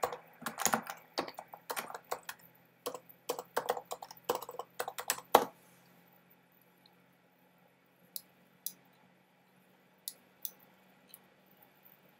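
Typing on a computer keyboard, a quick run of key clicks for about five seconds, then a few separate clicks spaced over the rest.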